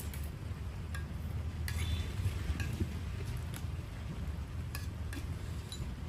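Scattered light clinks of utensils against bowls and a pot during a hotpot meal, a few at a time, over a steady low rumble.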